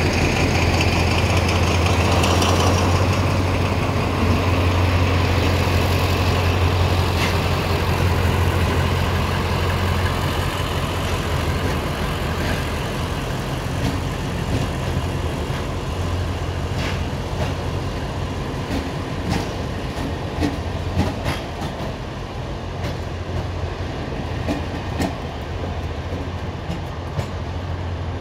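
TCDD DE 24000-class diesel-electric locomotive pulling away with its diesel engine running in a steady low hum, then the coaches rolling past with wheels clicking over the rail joints, the clicks more frequent in the second half as the train moves off. The hum fades near the end.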